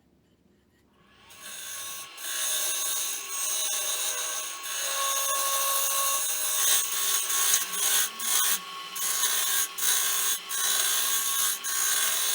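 A wood lathe spinning a piece of Itin wood while a tool works the surface, giving a dense scraping hiss over a steady hum. It starts about a second in, and in the second half it comes in short strokes as the tool is lifted off and put back on the wood.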